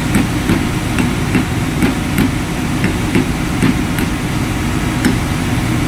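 Steady loud drone of running ship's machinery, with sharp metal taps about twice a second as a pipe used as a drift knocks a new bearing down into the purifier coupling housing.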